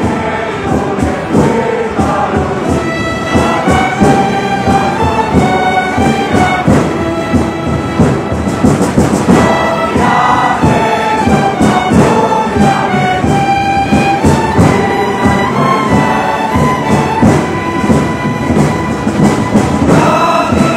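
Orchestral music with choral singing: strings and voices carrying a slow melody.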